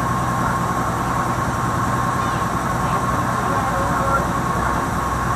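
Passenger riverboat's engine running with a steady low drone and a constant high whine.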